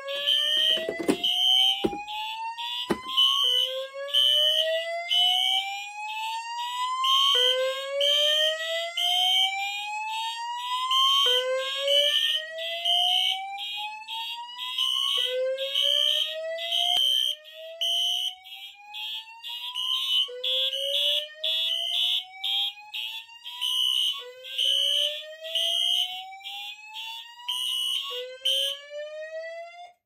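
Fire alarm system in alarm after a pull station activation. A high-pitched pulsing horn sounds together with a slow whoop tone that rises again and again, about every four seconds. There are a few sharp knocks in the first three seconds, and near the end the pulsing horn cuts off, then the whoop.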